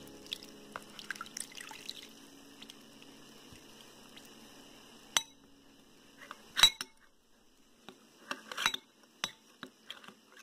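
A thin trickle of water pouring into cornflour in a ceramic bowl, then a metal spoon stirring it into a slurry, clinking sharply against the bowl several times, loudest a little past the middle.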